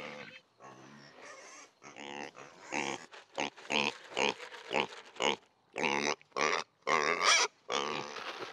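Idaho Pasture pigs grunting at feeding time: a quick run of short grunts, about two a second, louder from about three seconds in.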